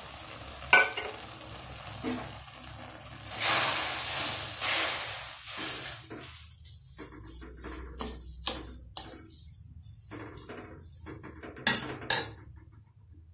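Perforated steel ladle stirring sugar into wet grated ash gourd in a steel kadai, swishing and scraping against the pan, with sharper clinks of metal on metal in the second half and a sizzle from the pan as the sugar dissolves.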